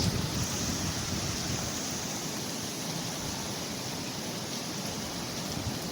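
Steady rushing hiss of a hurricane's wind and rain.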